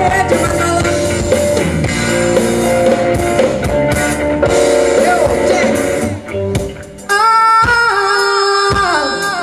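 Live band playing a jazzy pop song: a female vocalist singing over electric guitars, bass and drum kit. About six seconds in the band drops back briefly, then a sustained line comes in and steps down in pitch.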